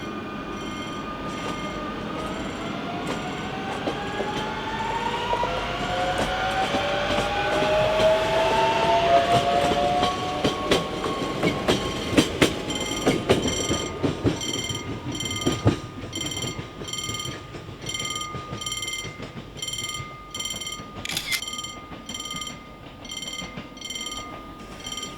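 CP Series 2200/2300 electric multiple unit passing, its traction motors whining and rising in pitch, with wheels clicking over rail joints. It builds to its loudest about ten seconds in, and a repeated high ringing runs through the second half.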